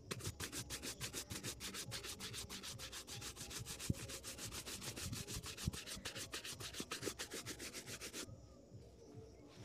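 Bristle shoe brush rubbed rapidly back and forth over a leather shoe, about six strokes a second, buffing in the polish. There are a couple of sharper taps along the way, and the brushing stops about eight seconds in.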